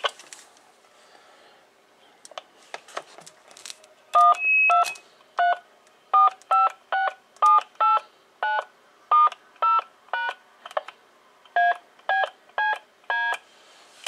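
DTMF touch-tones from a Kenwood MC-44DM microphone's keypad. A few faint clicks come first, then about sixteen short two-note beeps at roughly two a second, the first held longer than the rest. Each key is sending its tone now that corrosion has been cleaned off the keypad contacts.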